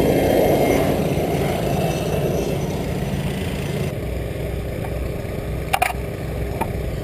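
Engine noise from firefighting machinery: a loud rushing drone that fades over the first few seconds. After an abrupt change it becomes a steady low engine hum, with two sharp clicks near the end.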